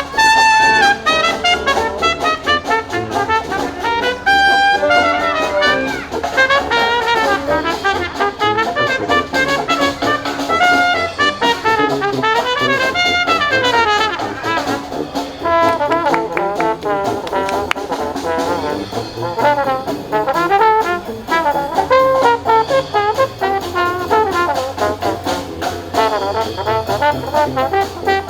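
A live brass band playing a jazzy tune, with several melody lines moving together and no pause.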